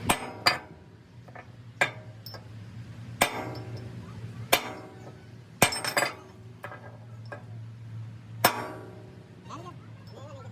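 Hammer striking metal parts, about eight sharp ringing blows at uneven intervals, with a faint steady low hum underneath.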